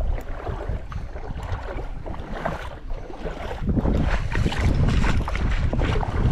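Wind buffeting the microphone, growing stronger about halfway in, with small scattered crackles over it.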